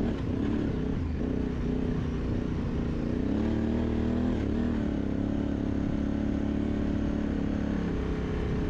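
Large adventure motorcycle engine running under load in sand, its pitch rising and falling as the throttle is worked a few seconds in.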